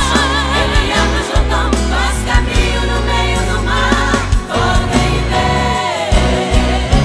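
Portuguese-language gospel worship song: sung vocals with vibrato and choir voices over held bass notes.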